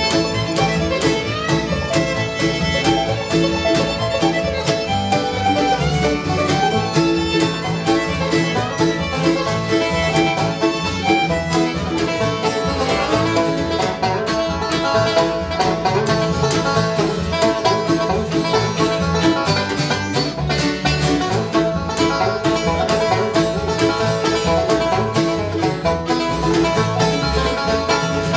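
Live bluegrass band playing an instrumental on fiddle, banjo, mandolin, acoustic guitar and upright bass, with rapid picked notes throughout.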